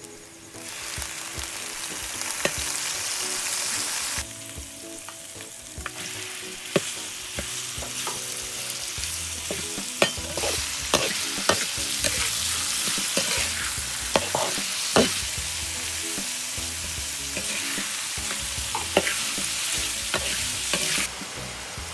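Chopped onion and raw chicken pieces sizzling and frying in a hot carbon-steel wok. The sizzle starts about a second in and eases briefly after a few seconds. A metal spatula scrapes and clacks against the wok as the food is stirred, and the sizzle drops off near the end.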